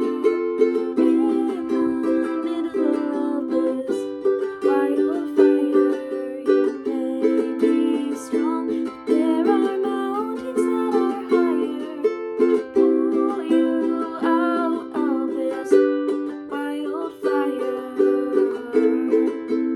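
Acoustic music on a plucked string instrument: chords ringing steadily underneath, with a melody line moving above them.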